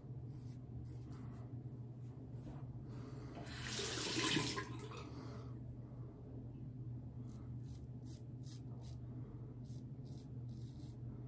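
Muhle R41 double-edge safety razor scraping through lathered stubble in short repeated strokes, with a tap running for about a second and a half near the middle.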